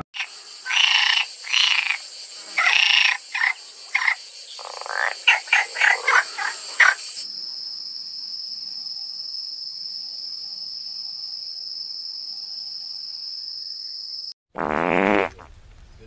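Frog croaking in a run of calls that grow shorter and quicker about five seconds in. Then a steady high insect hum takes over for about seven seconds, and a short loud animal call sounds near the end.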